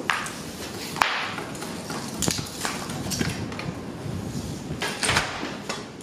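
Propane burner of a metal-melting furnace running steadily at full gas, with several sharp knocks and clanks over it, the loudest about a second in.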